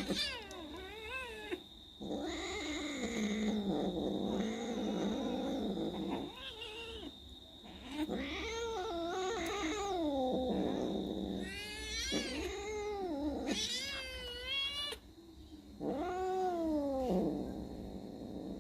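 Domestic cats caterwauling: a run of long, wavering yowls that rise and fall in pitch, one after another with short pauses, typical of cats squaring up to fight. A faint steady high-pitched whine runs underneath.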